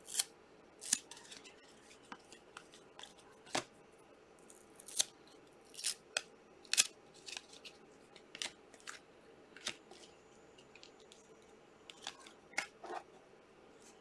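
Panini Prizm trading cards being flicked through by hand, one slid off the stack after another: short, sharp swishes and snaps at irregular intervals, a dozen or so in all.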